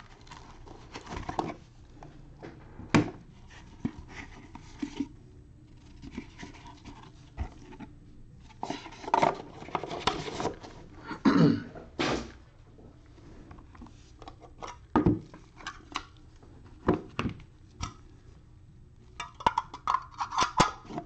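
Handling noise from unboxing a trading card hobby box with gloved hands: cardboard and foam scraping and rubbing, with irregular sharp clicks and taps from a hard clear plastic case, a quick run of taps near the end.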